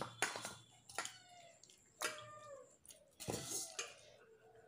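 A cat meowing several times, short falling calls and a longer one near the end, with a few sharp clicks.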